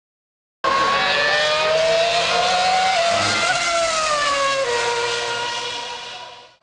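Formula 1 car's 2.4-litre V8 engine at very high revs, starting abruptly about half a second in; the pitch climbs slowly, then drops in steps past the middle, and the sound fades away near the end.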